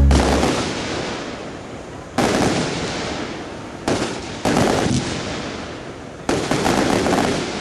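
Aerial firework shells bursting overhead: about five sudden bangs a second or two apart, each followed by a fading crackle as the stars burn out.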